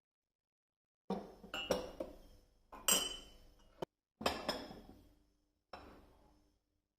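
Kitchen dishes and utensils clinking and knocking together: a quick run of sharp clinks with a short ringing after each, in several short bursts that start and cut off abruptly.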